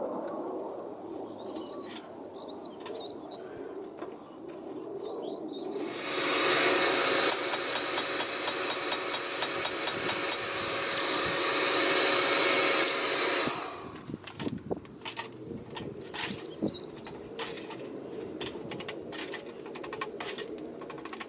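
Birds chirp faintly, then a loud, harsh hiss full of crackling clicks starts about six seconds in and cuts off after about seven and a half seconds, followed by scattered light knocks.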